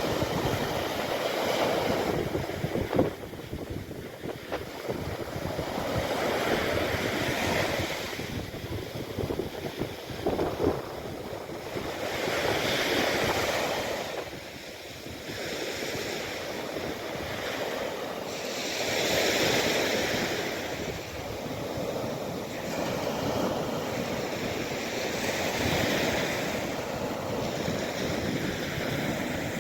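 Mediterranean sea waves breaking and washing on the shore, a steady rush that swells up about every six seconds.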